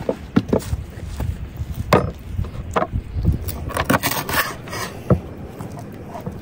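Kitchen knife cutting a raw cow tail into pieces on a wooden cutting board: a few irregular sharp knocks as the blade goes through and strikes the board.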